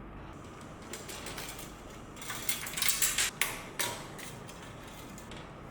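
Clicks and scrapes of the air pump's casing being opened and its switch taken out by hand, a quick run of small mechanical clatter that is busiest around the middle.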